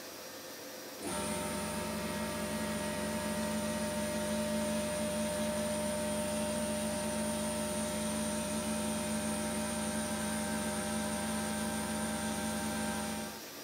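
Sandblasting cabinet in use, its blast gun stripping rust from a steel bayonet: a steady hiss with a strong hum that switches on about a second in and cuts off just before the end.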